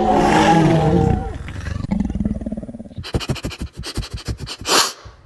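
Electronic toy T-Rex roaring: a loud, rough growl that fades after about a second. From about three seconds in comes a fast, even run of mechanical clicks, about seven a second, from its walking mechanism.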